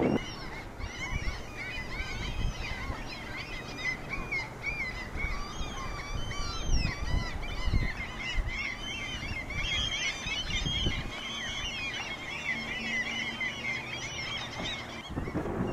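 A chorus of many small birds singing and chirping at once from the surrounding trees, over low gusts of wind buffeting the microphone.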